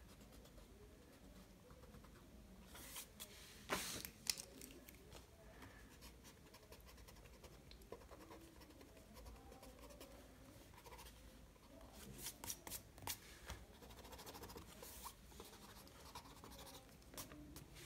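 Faint scratching of a slim drawing tool on sketchbook paper, short strokes with a few louder scrapes about three to four seconds in and again after about twelve seconds, over quiet room tone.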